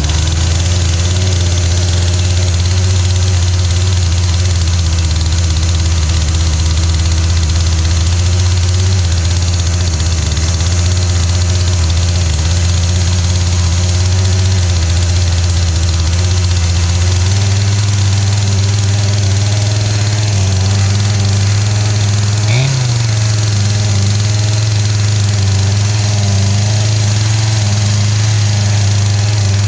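Poulan Pro PP4218A chainsaw's two-stroke engine running steadily on a freshly rebuilt carburetor, just started on half choke. It holds one speed, with a slight change in pitch about two-thirds of the way through, because its throttle is stuck.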